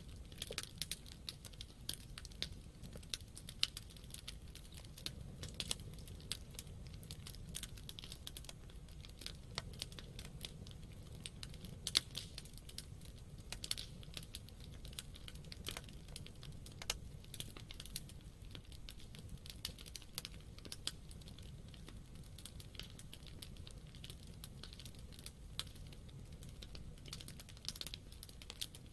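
Wood campfire crackling: irregular sharp pops and snaps, several a second, over a low steady rumble. A louder pop comes about twelve seconds in.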